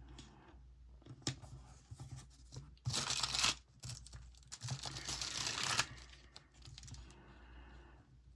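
Paper sticker being peeled from its backing sheet and handled: a short loud rasping peel about three seconds in, then a longer one from about four to six seconds, with light paper crinkles and taps around them.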